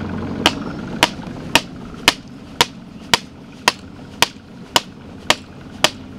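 Hammer beating a fishing bank pole into a riverbank: a steady run of sharp strikes, about two a second.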